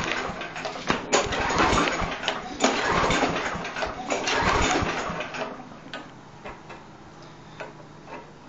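Briggs & Stratton lawn mower engine being pull-started with the recoil rope, cranking over in several surges without staying running. It goes quieter in the last few seconds.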